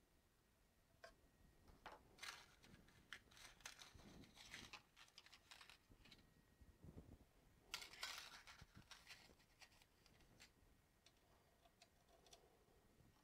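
Faint clicks and rustling from hands handling small parts and tools around a 3D printer's heated bed. The noises come in scattered bursts, busiest about two to five seconds in and again around eight seconds in.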